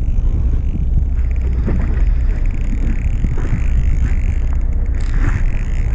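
Steady low rumble aboard a fishing boat: engine and wind noise, with faint voices in the background.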